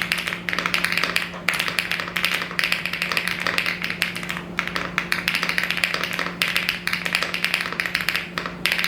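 Typing on a Rainy75 mechanical keyboard with its stock linear switches: quick runs of keystrokes clacking, with brief pauses between words every second or two.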